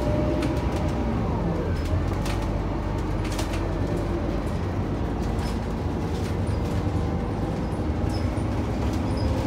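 Scania K94UB bus's 9-litre six-cylinder Scania DC9 diesel running under way, with a whine that drops in pitch about one and a half seconds in, as at a gear change of its ZF automatic gearbox, then holds steady. A few light rattles.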